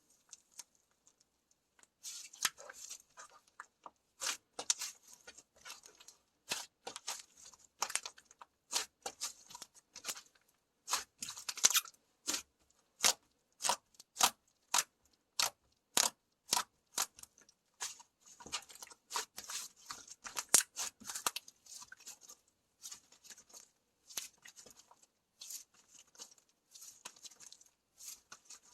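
Slime being squeezed and stretched by hand, crackling and popping. In the middle it gives single sharp pops about two a second.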